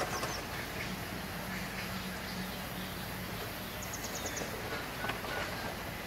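Sawmill band saw machinery running with a steady hum, with a few knocks of timber slabs being handled. A brief rapid high chirping comes about four seconds in.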